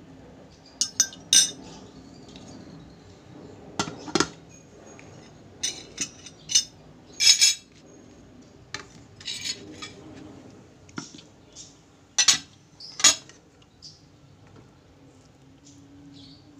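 Metal utensil clinking and scraping against a cut-glass plate: about a dozen sharp, irregular clinks, some with a brief bright ring.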